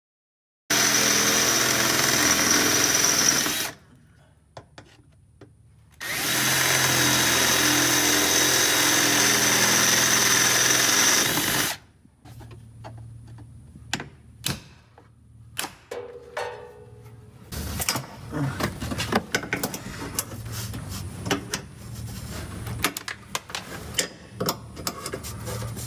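Power drill drilling out rivets in two steady runs, about three seconds and then about six seconds, boring the rivet heads with a bigger bit to weaken them. After that come scattered light clicks and metal knocks as side cutters work the leftover rivet pieces.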